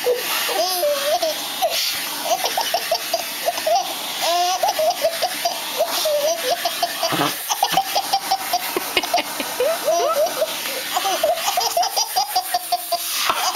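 A baby laughing hard in quick repeated bursts of belly laughter and squeals, over the steady hiss of a vacuum cleaner.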